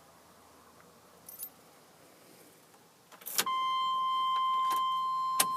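Keys jingling, then a sharp click about three seconds in, after which the pickup's electronic warning tone comes on as a steady high beep and holds.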